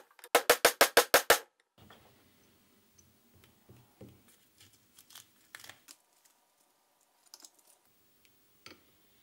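Rapid light hammer taps on a steel drift, driving a sealed ball bearing onto an electric motor's rotor shaft, about seven sharp ringing taps a second that stop about a second and a half in. Then only faint clicks of the rotor being handled.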